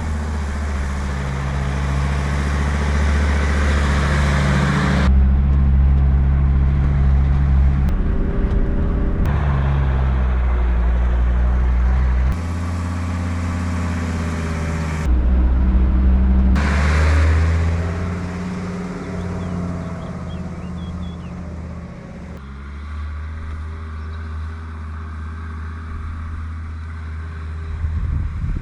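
Mercedes G 250 GD Wolf's five-cylinder diesel engine running as the vehicle drives, with tyre and wind noise over it. The engine note and loudness change suddenly several times, and it is quieter in the last third.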